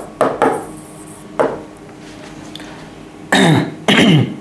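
A man clearing his throat, two short sounds a little over three seconds in, after a few brief, quieter sounds earlier.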